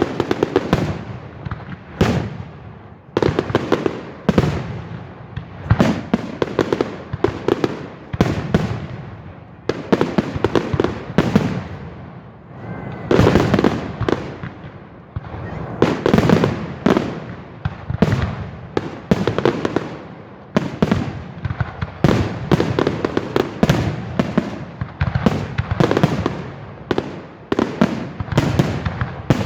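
Fireworks display: a dense barrage of sharp bangs, several a second, each trailing off in an echo.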